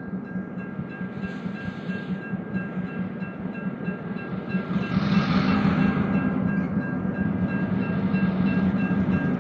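Diesel locomotives, an EMD F7 A and B unit followed by Alco road switchers, running past close by. There is a steady low engine drone and rolling noise that grows louder, swelling about halfway through as the units go by.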